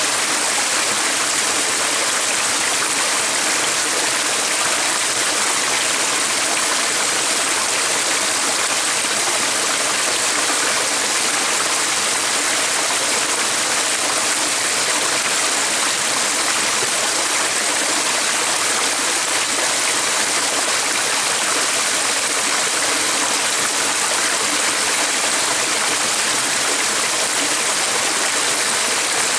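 Stream running: a steady, even rush of flowing water.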